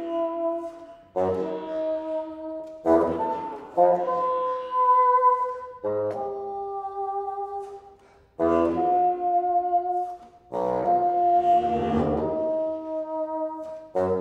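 Bassoon with electronics playing a series of held notes, each entering with a sharp attack, with several pitches sounding together like chords; there is a brief pause about eight seconds in.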